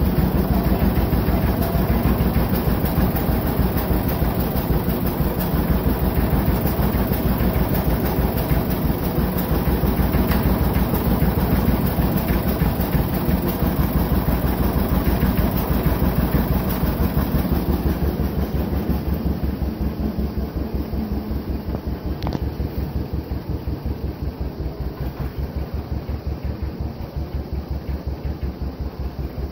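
Vintage John Deere two-cylinder tractor engine running with a steady, even pulsing beat. It drops to a quieter level a little past the middle and keeps pulsing.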